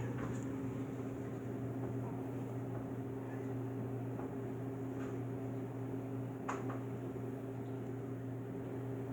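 Steady electrical hum of a household appliance or fan, with a couple of faint clicks midway.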